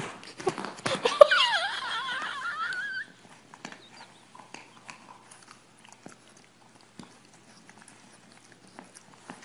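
A dog's high, wavering cry, rising and falling in pitch for about two seconds after a few knocks, cut off suddenly. Faint scattered clicks follow.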